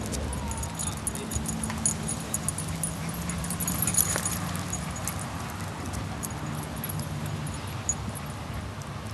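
Dogs playing, with the metal tags on their collars jingling in many short clicks, over a steady low hum.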